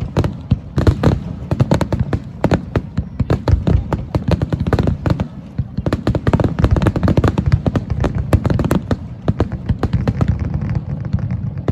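Fireworks display: shells bursting in a dense barrage, many bangs and crackles in quick succession.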